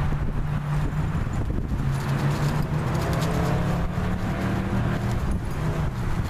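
A motor vehicle's engine humming steadily, a low tone that wavers slightly in pitch, over footsteps rustling through dry fallen leaves.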